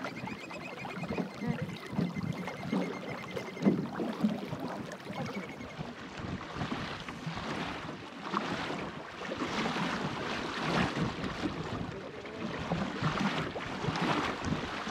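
Water rushing and splashing along the hull of a small wooden sailing dinghy moving briskly under sail, swelling in surges, with wind buffeting the microphone.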